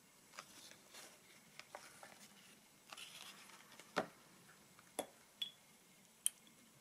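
Faint handling noise of a 1912 Golden Gem chain adder being lifted out of its leather case and turned over in the hands: light rustling with a few sharp clicks and taps, the clearest about four and five seconds in.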